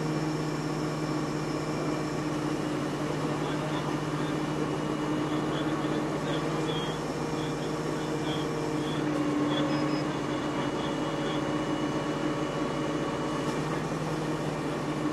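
Engines of heavy emergency vehicles idling steadily, a low even hum.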